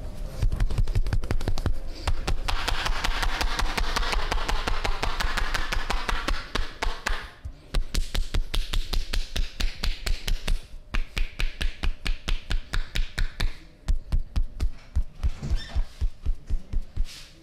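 Massage percussion: hands rapidly slapping and tapping on the body, an even rhythm of about five strikes a second that pauses briefly twice, with a rustling hiss beneath the strikes in the first half.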